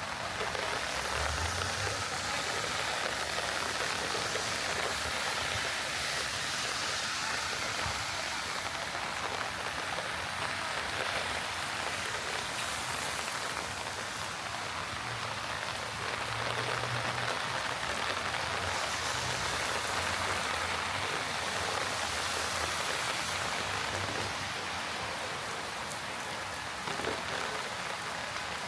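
Heavy rain falling steadily on city streets, an even hiss.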